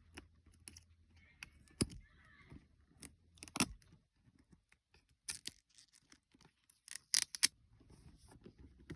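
Product packaging being handled and opened by hand: a run of sharp clicks and taps with brief tearing and crinkling between them, the loudest clicks about two seconds and three and a half seconds in and a quick pair near the end.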